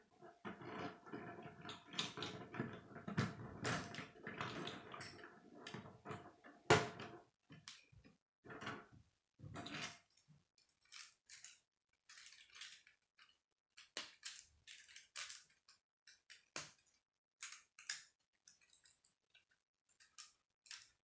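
Plastic K'nex rods and connectors clicking and rattling as they are handled and snapped together. Dense clattering for the first several seconds, a sharp snap about seven seconds in, then scattered single clicks.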